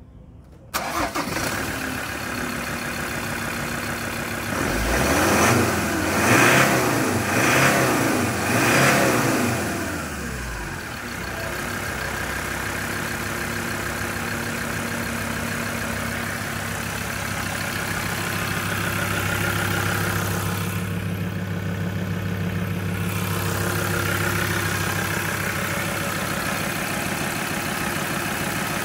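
2018 Mazda BT-50 turbo-diesel engine starting about a second in and idling. It is revved several times in quick succession, then settles back to a steady idle during an engine test run.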